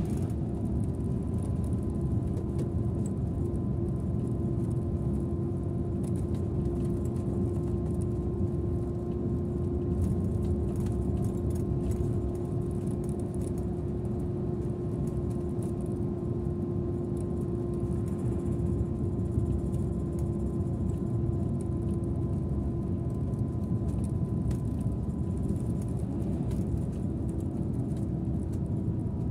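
Scania Interlink bus driving at a steady pace, heard from inside at the driver's seat: an even engine and road rumble with a steady whine over it.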